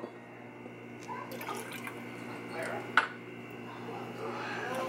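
Faint liquor pouring and glassware handling, with one sharp glass clink about three seconds in, over a low steady hum.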